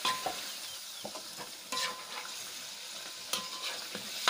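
Chicken sizzling in a wok while a metal spatula stirs it. The spatula scrapes and knocks against the pan about three times, each knock with a short metallic ring, over a steady sizzle.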